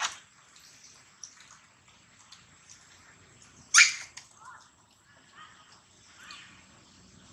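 Baby long-tailed macaque crying with short, sharp, high-pitched squeals: one at the very start and a louder one about four seconds in, followed by a few faint squeaks.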